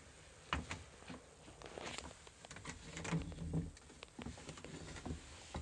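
Scattered light knocks, clicks and rustles of handheld-camera handling and someone moving about in a yacht's small cabin.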